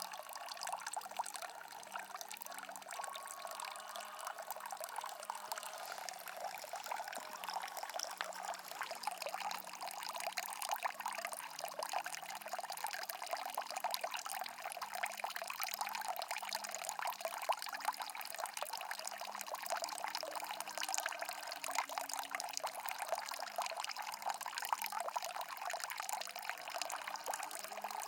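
Mountain stream water running steadily, an even rushing hiss with a fine, irregular splashing flicker.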